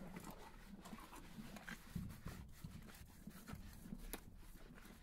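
Faint, irregular rubbing and soft thumps of a rubber curry groomer scrubbing a horse's coat, mixed with the horse munching feed from a rubber tub.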